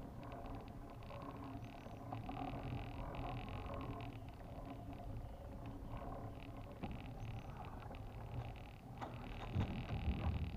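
Wind rumbling on the microphone, with spells of the fine ticking whir of a baitcasting reel being cranked to retrieve a lure, in the first few seconds and again near the end.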